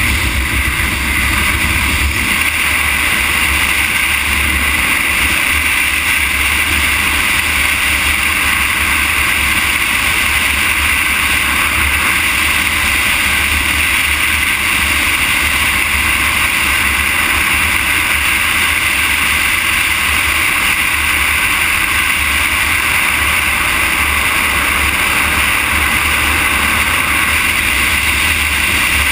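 Steady wind noise on the microphone of a camera riding along an asphalt road: an even rushing hiss over a low buffeting rumble, with no change in pace.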